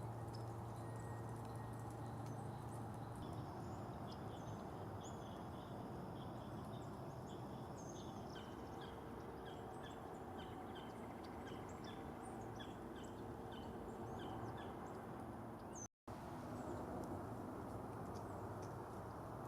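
Birds calling with many short high chirps over a steady background hiss, with a thin high note held for about five seconds in the first half. The sound drops out for an instant about sixteen seconds in.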